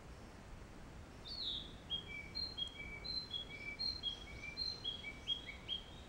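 Small songbird singing a long phrase of short, clear whistled notes at three alternating pitches, opening with a downward-slurred note about a second in, over a faint steady hiss of woodland background noise.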